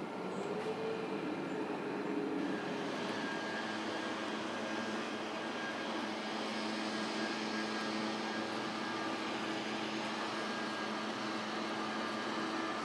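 Steady distant engine drone with a constant low hum; its pitch wavers in the first couple of seconds, then holds steady.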